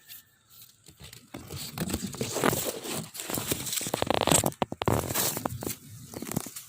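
Pomelo tree leaves and branches rustling and crackling as a hand works a fruit loose to pick it: a dense, irregular crackle that starts about a second in.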